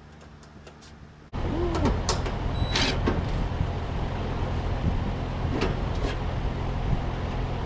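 Trane XR heat pump outdoor unit running: the condenser fan and a steady mechanical hum, with the compressor trying and failing to start because of a bad (bulged) run capacitor. The hum comes in suddenly about a second in, with a few clicks and rattles on top.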